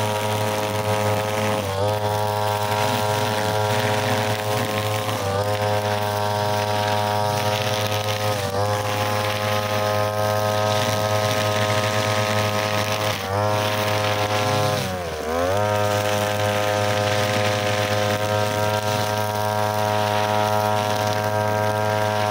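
Backpack brushcutter engine running at high revs while cutting grass. Its pitch dips briefly every few seconds and falls furthest about fifteen seconds in, then picks back up.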